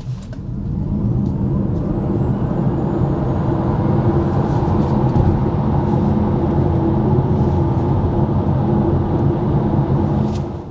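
Tesla Model Y Performance launching hard from a standstill: a faint electric-motor whine rises over the first couple of seconds under a building rumble, then steady road and tyre rumble at speed, which drops away just before the end.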